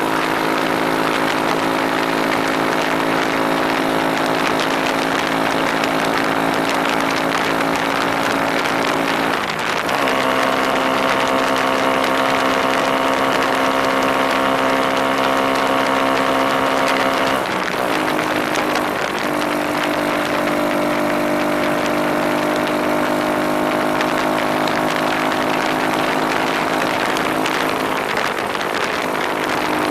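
Small scooter engine running at a steady pace while riding. Its pitch steps up about a third of the way in and drops back a few seconds later, with a steady rushing hiss underneath.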